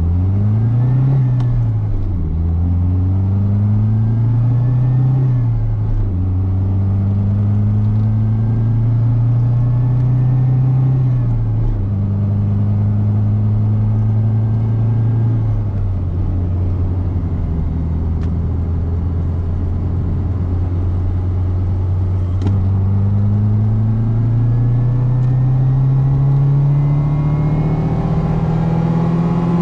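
Fiat Seicento Sporting's 1.1-litre four-cylinder petrol engine pulling the car along, heard from inside the cabin. Its pitch climbs and then drops sharply several times as gears are changed, then rises steadily for a long stretch near the end.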